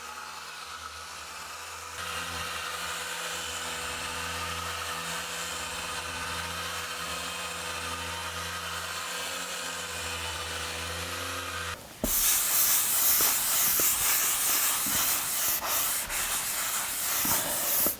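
Sanding a thin layer of mineral Venetian plaster. For about twelve seconds there is a steady machine hum under a soft hiss. Then the sound turns abruptly to a much louder, hissing rub of abrasive working over the plaster surface, with uneven strokes.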